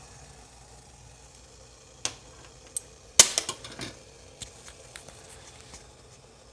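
A few sharp clinks and knocks of a metal car thermostat and utensils being handled after it is lifted out of boiling water. The loudest knock comes about three seconds in, followed by a quick cluster of lighter clicks.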